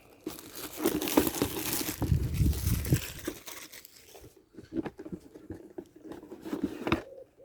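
Packaging being handled while a model kit box is opened: crinkling and rustling for the first few seconds, then scattered light knocks and taps as the contents are moved.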